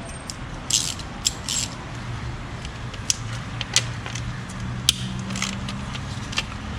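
Scattered metallic clicks and clinks of hand tools, a ratchet with a 10 mm socket, working on the ignition coil hardware in the engine bay, over a steady low hum.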